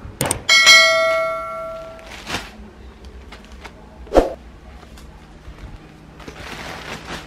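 A metallic clang that rings on and fades over about a second and a half, followed a few seconds later by a single dull thump and a soft rustle.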